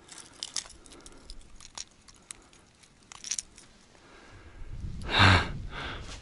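Small metallic clicks and jingles of a fishing lure and its treble hooks being handled while the lure is worked out of a caught asp's mouth. Rustling handling noise follows, with one louder scuffle about five seconds in.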